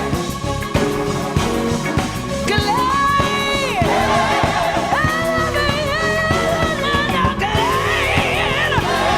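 Gospel song: a band with drums plays while voices sing long held notes with vibrato, answering "glad" in a call-and-response.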